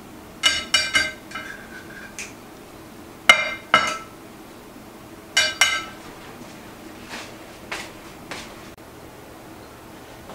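A metal utensil clinking against a hard dish: sharp ringing clinks in quick groups of two or three, about every two seconds. The clinks grow fainter in the second half.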